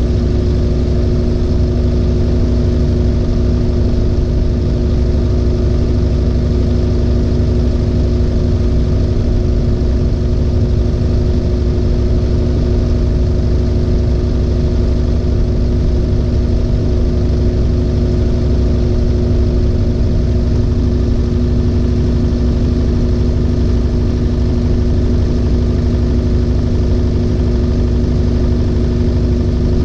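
LG 18 kg washing machine in its final high-speed spin with an overloaded drum: a steady loud hum with two constant tones over a deep rumble, holding at full speed without change.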